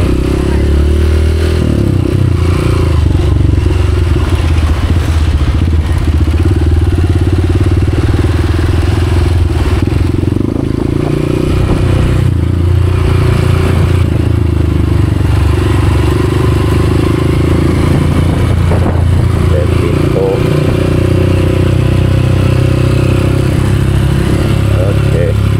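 Motorcycle engine running steadily at low road speed, a continuous hum amid street traffic.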